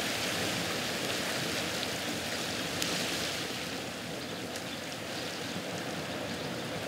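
Sea surf washing in among rocks and over a pebble shore: a steady rushing wash of water.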